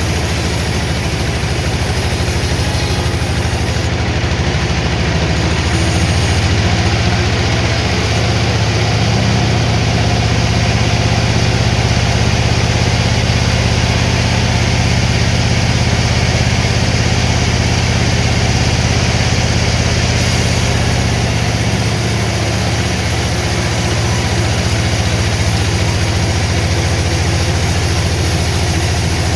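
Sawmill machinery running steadily, a low, even engine-like drone, a little louder through the middle.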